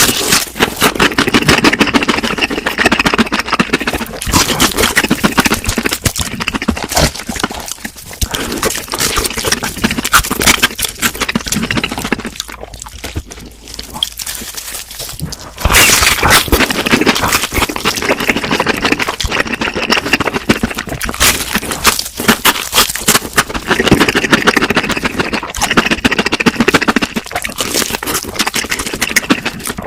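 Close-miked eating: loud crunching and chewing of crispy fried food, many rapid crackles, easing off briefly about halfway before starting up again.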